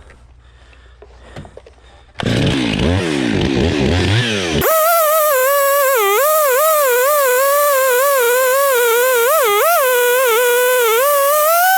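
Chainsaw starting up about two seconds in and revving unevenly, then from near the middle running at high revs while slabbing a log, its pitch wavering under load.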